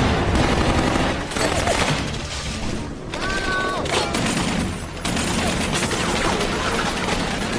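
Heavy automatic gunfire from machine guns and rifles, many shots in rapid overlapping strings with no pause, in a war film's battle sound mix.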